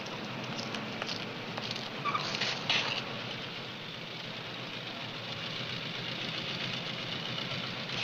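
Motorcycle engine running, a steady noisy sound with a brief louder surge about two seconds in.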